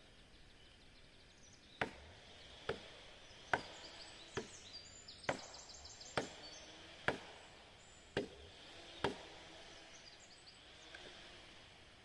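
A hand tool striking wood: nine sharp knocks, about one a second, with no chainsaw running.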